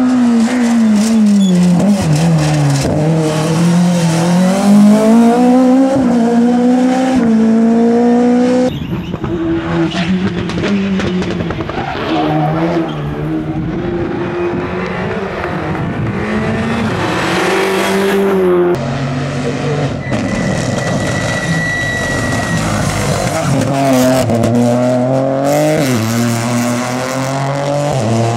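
Rally cars at full throttle on a stage road, engines revving up and dropping back through gear changes. The sound changes abruptly twice as one car's run gives way to the next.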